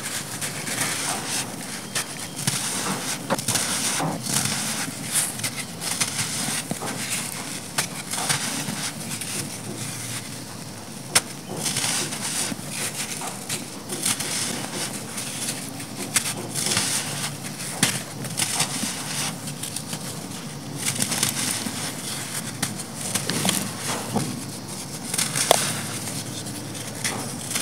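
Dry lumps of black sand crushed and crumbled in the hands: continuous gritty crunching full of small cracks, with one sharper crack about eleven seconds in.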